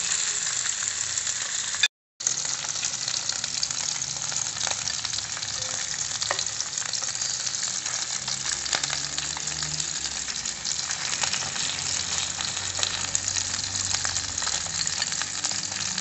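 Salmon pieces sizzling and crackling as they fry in oil in a nonstick pan, with occasional taps and scrapes of a metal fork turning them and lifting them out. The sound cuts out for a moment about two seconds in.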